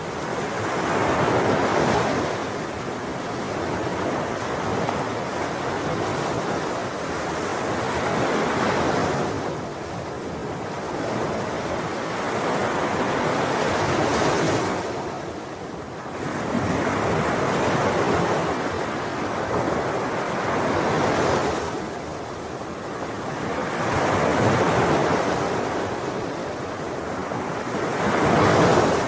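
Ocean waves breaking on a shore, a continuous wash of surf that swells and falls back every few seconds, one wave after another.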